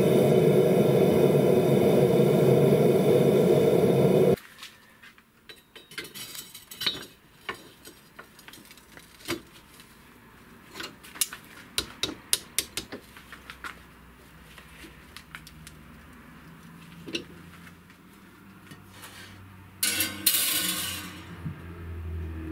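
A loud steady sound cuts off about four seconds in. Then comes a run of light metal clinks and taps as the steel blade is handled with tongs at a bench vise. Near the end there is a short rush of noise, followed by a low steady hum from the countertop electric oven.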